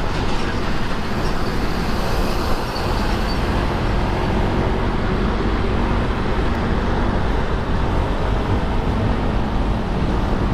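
Steady road noise of a Honda SH150i scooter ride through city traffic: the scooter's running engine, tyres and passing traffic, with no sharp events.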